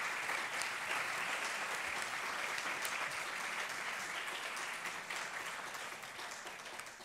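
Audience applauding, a steady patter of many hands clapping that thins and fades out near the end.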